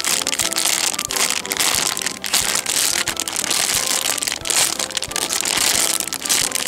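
Thin clear plastic packaging bags crinkling and crackling as foam squishy toys are squeezed through them, one after another.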